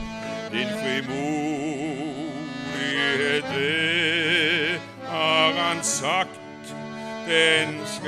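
A men's choir singing a slow hymn with accordion accompaniment: held notes that waver, over steady sustained accordion chords.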